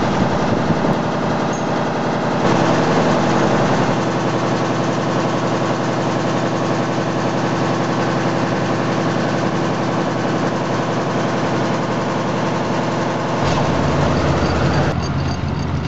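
Stationary engine running at a steady speed with a rapid, even beat. The sound shifts about two and a half seconds in and again near the end.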